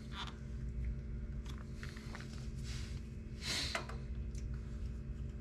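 Faint clicks and scrapes of fingers prying a stock plastic swing arm cover loose from a Harley-Davidson touring motorcycle's swing arm, over a steady low hum. A brief louder rustle comes about three and a half seconds in.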